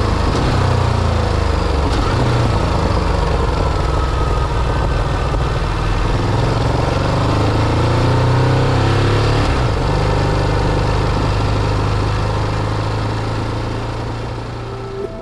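Ducati DesertX's 937 cc L-twin engine running on the move, its pitch rising and falling with the throttle, over a steady rush of road and wind noise. It eases off slightly near the end.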